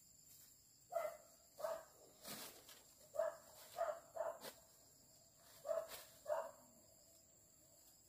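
An animal calling repeatedly: about eight short, evenly pitched calls, some in quick pairs, spread over several seconds.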